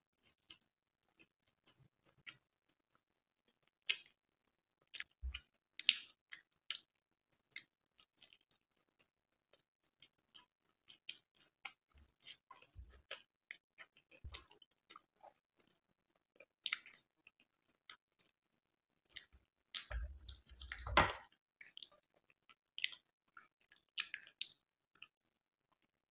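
Close-up mouth sounds of someone chewing a soft pink-and-white milk sweet: irregular short wet clicks and smacks, with a louder stretch about twenty seconds in.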